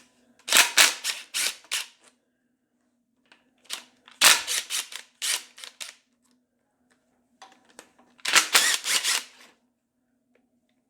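Impact wrench hammering in three short bursts, running out the bolts of the engine's water pump and front cover.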